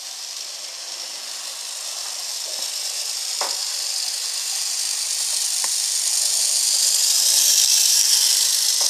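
Bachmann model trolley running on its track under a little throttle: the small electric motor and wheels make a high-pitched whir that grows steadily louder as the car comes close, with a few faint clicks.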